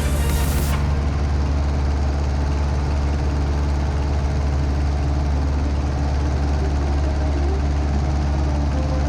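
1946 Aeronca Champ's engine and propeller drone steadily in cruise, heard from inside the cockpit. The tail end of a music track cuts off under a second in.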